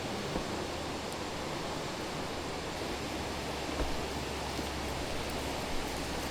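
Steady rushing noise, with a few faint clicks.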